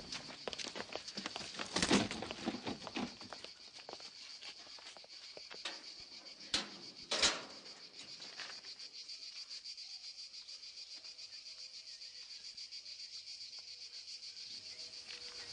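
Crickets chirping steadily in a high band, with shuffling footsteps and clatter from a group of people over the first few seconds and two sharp knocks about seven seconds in.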